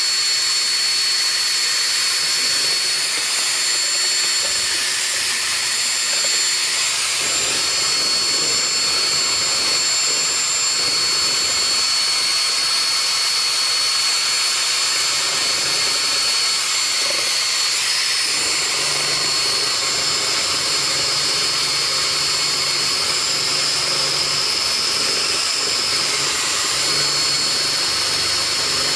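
Electric drill running steadily with a paint-mixer attachment, stirring a can of wood stain. It gives a continuous high whine that shifts slightly in pitch a couple of times.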